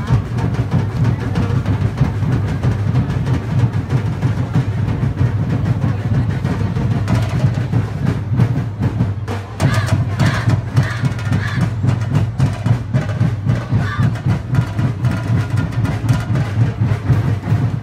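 Live festival drumming: a percussion ensemble plays a steady, driving beat for a street-dance routine, with voices shouting out about ten seconds in.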